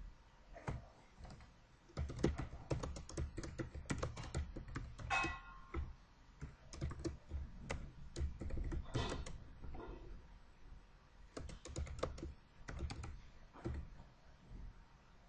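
Typing on a computer keyboard in several quick runs of keystrokes, with short pauses between them.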